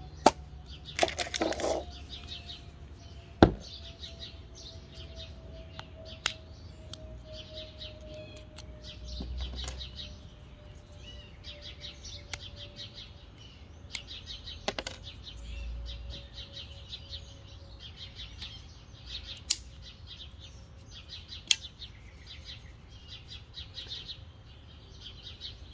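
Small birds chirping steadily in the background, with a few sharp plastic clicks and a brief rattle as the plastic applicator and straw are handled and fitted onto a can of spray foam. A faint hum slowly falls in pitch underneath.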